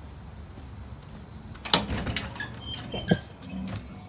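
A run of light knocks, clicks and rattles starting about two seconds in, from a door being opened and handled.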